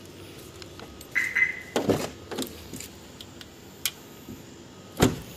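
A Maruti Suzuki Baleno's car door being handled: scattered clicks and knocks with a brief squeak, a few thumps around two seconds in, and a single louder thump about five seconds in.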